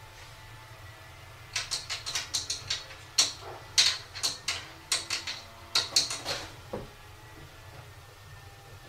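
Cupboard doors held shut by a child lock, rattling and knocking as kittens paw at them: a quick run of sharp clicks for about five seconds, starting about a second and a half in.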